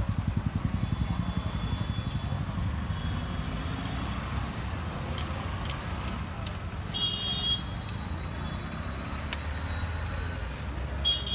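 Steady low rumble of an engine running nearby in street traffic, pulsing quickly for the first couple of seconds. A few sharp clicks of metal tongs on the grill come through, and short high electronic beeps sound about seven seconds in and again near the end.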